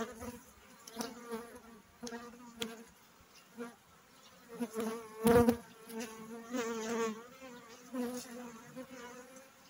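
Honeybees buzzing around an open hive, a low hum that swells and fades as bees pass near. About halfway through comes one sharp knock from the wooden frames being handled.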